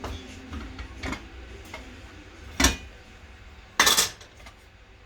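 Kitchen cookware clattering: a few separate sharp knocks and clinks of utensils against pots and pans, the loudest about four seconds in.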